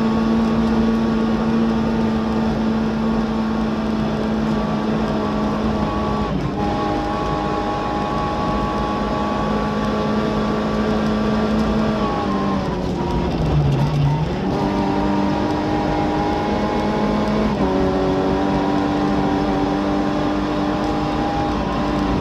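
Skoda Favorit Group A rally car's four-cylinder engine heard from inside the cabin, held at high steady revs at speed. About twelve seconds in the revs fall away as the car slows, then climb again as it accelerates.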